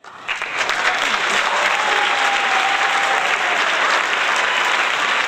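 A crowd applauding, a dense steady clatter of many hands clapping that swells up within the first half second. A thin held note rises above the clapping about two seconds in.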